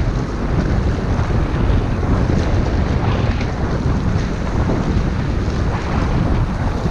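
Wind buffeting the microphone on open sea, with the wash of waves underneath; a steady, loud rumbling noise throughout.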